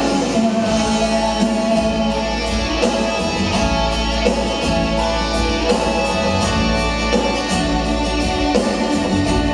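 A rock band playing live: electric guitars over bass and keyboards, with a steady drum beat.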